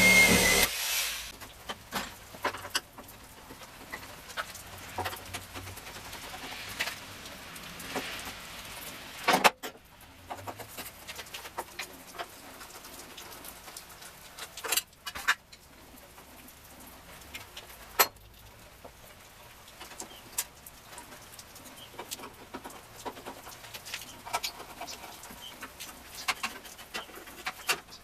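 Scattered light clicks and knocks, a few sharper ones standing out, over a faint steady background hiss.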